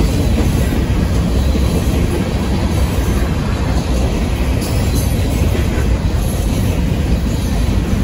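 Union Pacific freight train of empty grain hopper cars rolling past at close range: a loud, steady rumble of wheels on the rails.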